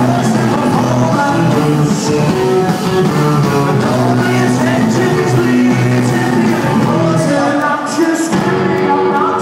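Rock band playing live: electric guitars, drums and a singing voice, loud and dense. Recorded on a phone in a large hall, so the sound is thin in the deep bass.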